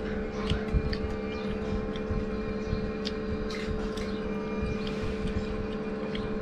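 Eating sounds: chewing and smacking with many short clicks, over a steady mechanical hum.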